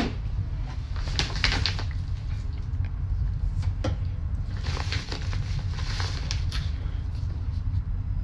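Fabric suitcase and the things in it being handled: rustling of cloth and plastic with a few sharp clicks, over a steady low rumble.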